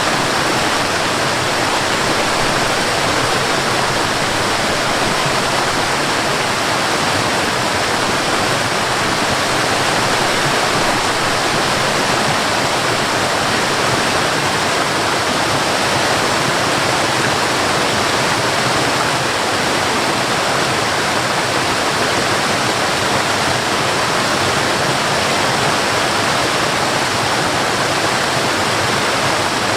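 Forest waterfall: a steady, even rush of falling water, with no change in level.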